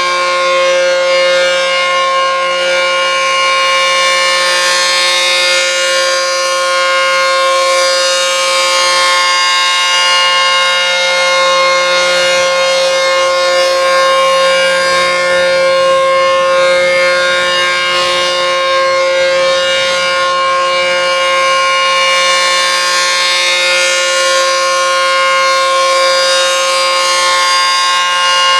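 ACA P-15 rotating outdoor warning siren sounding a steady, unbroken alert tone at full speed. Its upper notes swell and fade slowly, about every ten seconds, as the head turns.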